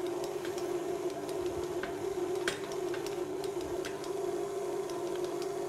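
A steady hum held at one pitch, with a few faint ticks scattered through it.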